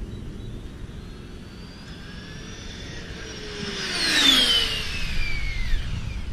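Brushless electric drivetrain of an OFNA DM-1 RC car on 6S during a speed run: a high whine rises as the car accelerates toward the microphone. It is loudest as the car passes about four seconds in, then drops sharply in pitch as it speeds away.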